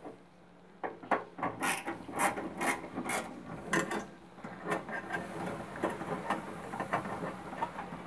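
Magnetic screwdriver backing out Phillips screws from a microwave's magnetron mount: a run of sharp, irregular metal clicks, about two a second, turning to fainter scraping and rubbing in the second half.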